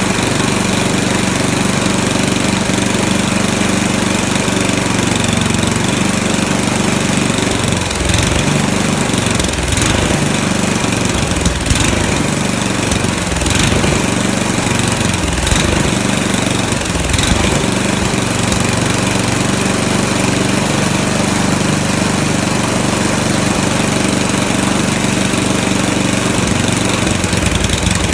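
A 10 HP Tecumseh single-cylinder engine on a snowblower runs while its carburetor is adjusted with a screwdriver. The engine speed wavers up and down in the middle of the stretch, then settles back to a steady run.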